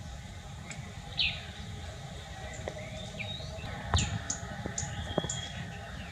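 Small birds chirping intermittently, with short high twitters and downward-sweeping calls, over a steady low outdoor rumble. A few sharp clicks come about four and five seconds in.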